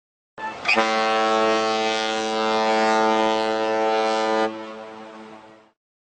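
Boat horn sounding one long, steady, low-pitched blast of about four seconds, cutting in sharply and then fading away over about a second.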